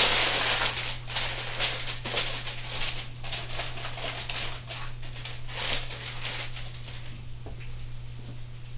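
Aluminium foil crinkling as it is pressed and crimped down around the rim of a disposable aluminium pan, in quick irregular scrunches that thin out toward the end.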